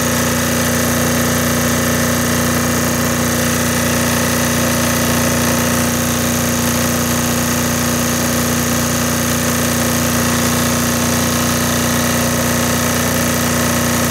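Air-cooled single-cylinder diesel generator engine running steadily under heavy electrical load at its governed speed for 60 Hz output.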